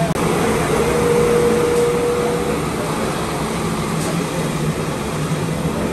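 Potato fries deep-frying in a large gas-fired commercial fryer: a steady, loud sizzle and bubbling of hot oil over a low hum, with a thin steady whine through the first two seconds or so.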